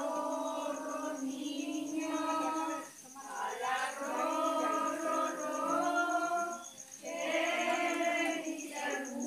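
A group of people singing together in slow, long-held phrases, with short breaks about three and seven seconds in.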